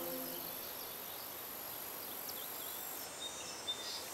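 Faint outdoor village ambience with a few short, scattered bird chirps and a small click near the end. A held musical chord fades out in the first half-second.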